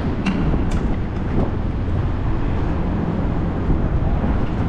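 Steady low rumbling noise with a couple of light clicks in the first second.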